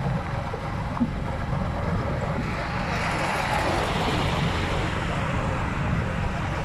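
Steady wind and road rumble from a vehicle driving along a highway. In the middle a rushing sound swells and fades as another vehicle overtakes.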